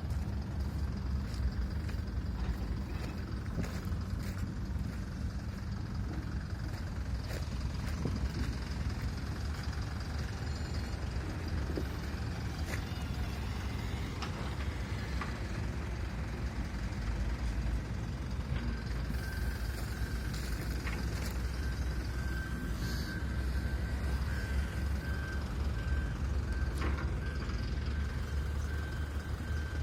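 Heavy diesel construction machinery running steadily with a deep engine drone. About two-thirds of the way in a high, pulsing beep starts and keeps on, like a vehicle's reversing alarm.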